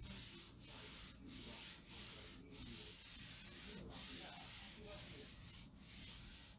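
Paper towel rubbing back and forth across a cutting mat in a series of faint, quick wiping strokes, cleaning off leftover chalk paste.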